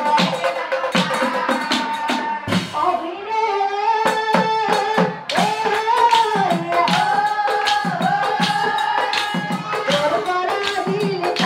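Assamese Nagara Naam devotional music: a melody of held, sliding notes over a quick, steady beat of drums and jingling hand cymbals.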